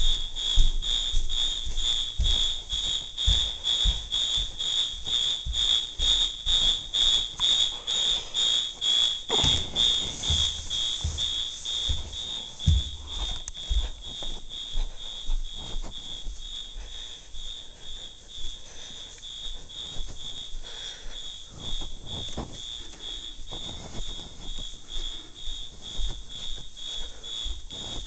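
Fire alarm horn sounding in march time: a high-pitched tone pulsing on and off about twice a second. It grows fainter about ten seconds in.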